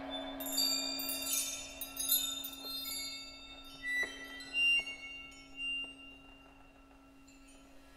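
Accordion holding one steady low note while the percussionist plays ringing metallic strikes, busy in the first couple of seconds, then a few single strikes, the sound thinning out toward the end.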